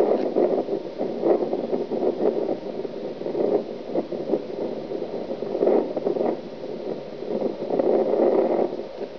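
Wind buffeting a camcorder microphone: an uneven rushing noise that swells and drops in gusts.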